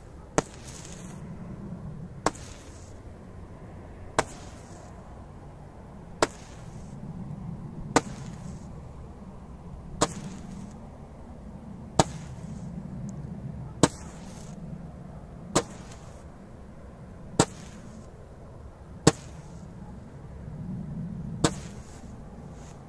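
A Joker Roman candle firing twelve shots about two seconds apart. Each shot is a sharp pop followed by a short hiss as a burning star is thrown out.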